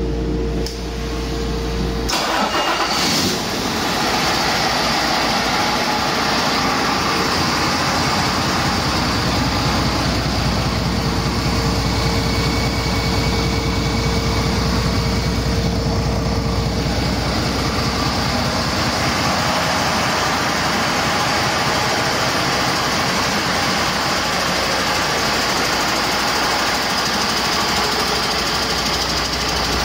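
2019 International A26 12.4-litre inline-six diesel starting on a test stand: it cranks briefly about two seconds in, catches, and settles into a steady idle.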